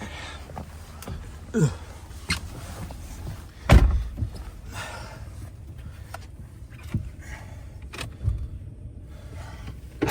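Pickup truck driving through deep snow: a steady low engine rumble with a hiss from the tyres and snow, broken by several knocks and jolts, the loudest about four seconds in.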